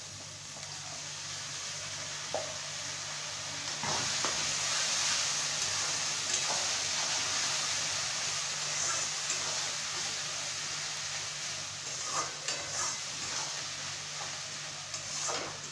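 Ginger-garlic-green chilli paste sizzling in hot oil with fried onions in a metal kadai, stirred with a metal spatula that scrapes and knocks against the pan now and then. The sizzle grows louder about four seconds in.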